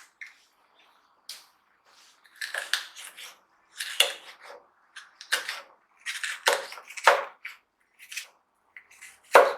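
Kitchen knife cutting a red bell pepper on a cutting board, in a series of irregular strokes and scrapes.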